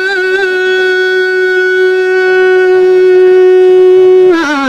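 A single musical note from a Kumaoni folk song, held steady for about four seconds and then sliding down near the end.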